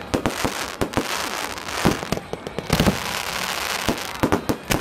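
Fireworks going off: a dense run of bangs and pops, several a second, over a continuous crackling hiss.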